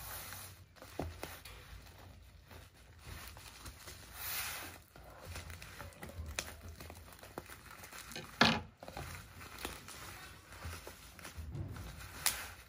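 Black plastic and bubble-wrap parcel wrapping crinkling and rustling as fingers pick and pull at its taped edge, with scattered sharp clicks and one loud crackle about two-thirds of the way through.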